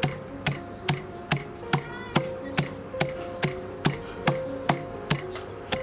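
Pestle pounding fresh lemongrass, galangal, garlic, chili and herbs in a mortar, crushing them into a spice paste: an even beat of dull knocks, about two a second.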